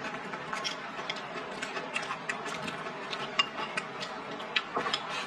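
Close-up chewing of a mouthful of rice and stir-fried greens: irregular wet mouth clicks and soft crunches.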